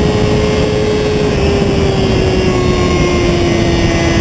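Sport motorcycle's engine running at high revs, its pitch sinking slowly, under a heavy rush of wind on a camera mounted low beside the front wheel.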